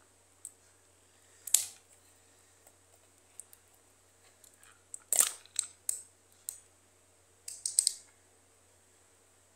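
Glass sauce jar being handled and its screw-top lid twisted off: a few short clicks and knocks, the loudest about five seconds in, followed by several more and a quick cluster near the end.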